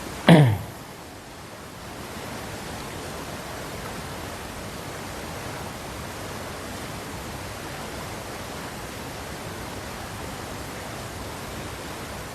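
Steady hiss of background noise, broken about a third of a second in by one brief, loud sound that sweeps quickly down in pitch.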